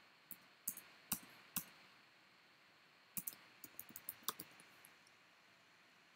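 Faint clicks of computer keyboard keys as a word in a terminal command is deleted and retyped. There are a few separate keystrokes in the first second and a half, then a quick run of about ten about three seconds in.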